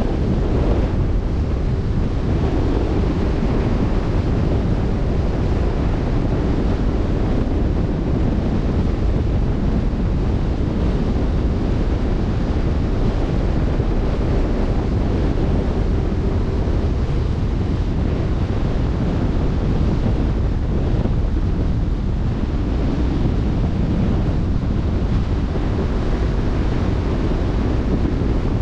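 Wind buffeting the microphone over the rush of open-sea waves: a loud, steady, even noise, heaviest in the low end.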